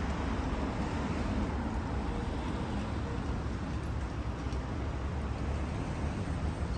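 Steady hum of road traffic on a city street.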